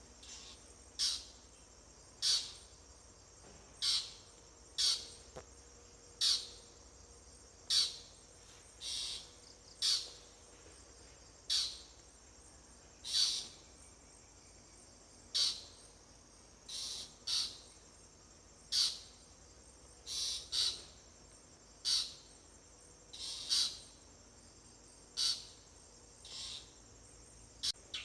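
A bird giving short, high calls that sweep downward, repeated roughly every second or so, over a steady high drone of crickets or other insects.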